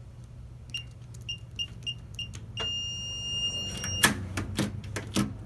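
Keypad of a YL-99 keyless door lock: five short high beeps as a code is keyed in, then one long beep of about a second and a half as it accepts the code. Several sharp clicks and knocks follow from the lock and door hardware.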